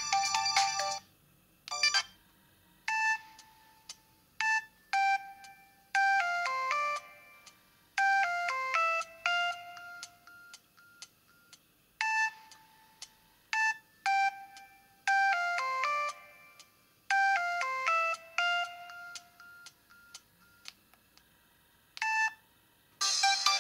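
Samsung SGH-L760 mobile phone playing a ringtone through its speaker: a sparse melody of short single electronic notes in quick stepping runs, with pauses between phrases, and the tune played through twice. The previous ringtone ends about a second in, and a fuller, denser ringtone starts near the end.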